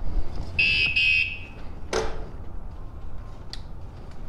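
Two short, high electronic beeps in quick succession, followed about a second later by a sharp click.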